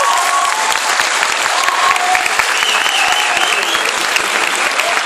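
A large audience applauding steadily at the end of an accordion song, with a few calls and a high wavering call about halfway through.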